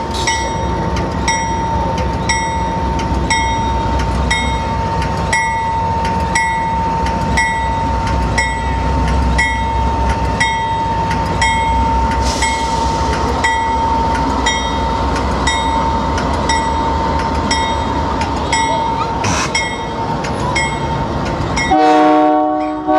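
A diesel locomotive's bell rings steadily, about two strokes a second, over the engine's low rumble and a steady whine. Near the end the multi-chime air horn sounds loudly, signalling that the train is about to depart.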